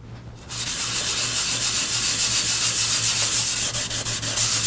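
Very fine 0000 steel wool scrubbing reddish-brown paste wax onto a mahogany board: a steady scratchy hiss of scrubbing that starts about half a second in.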